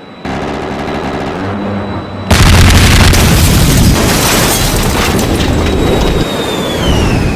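A big explosion: a low rumble starts about a quarter second in, then a sudden loud blast about two seconds in that keeps rumbling for several seconds, with a thin falling whine near the end.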